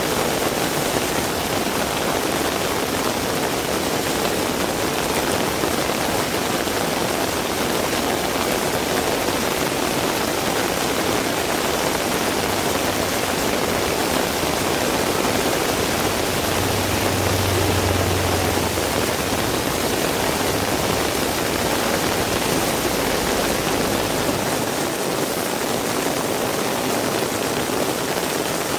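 Heavy rain pouring steadily, a dense even rush of water. A brief low hum rises a little past halfway through.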